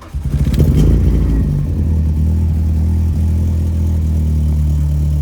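A car engine running at a steady speed, building up over the first second and then holding an even low hum.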